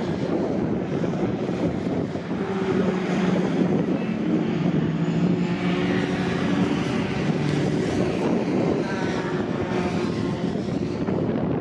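Racing pickup trucks' engines running hard as the trucks pass and corner, the engine note rising and falling, loudest in the middle. Wind buffets the microphone throughout.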